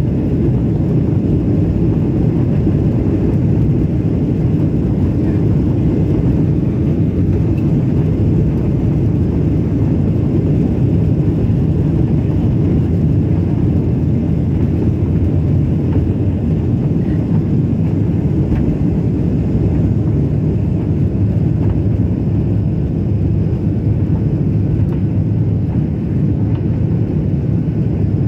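Cabin noise of a Boeing 737-800 at takeoff thrust: the CFM56-7B turbofans give a loud, steady low noise through the takeoff roll and lift-off.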